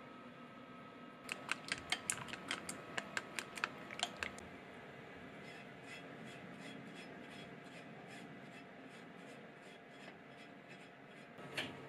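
Chopsticks beating egg and chopped green onion in a glass bowl: a quick run of sharp clicks against the glass, about four a second. Then softer, even wiping strokes, about three a second, as oil is spread over a cast-iron tamagoyaki pan, ending in a single knock.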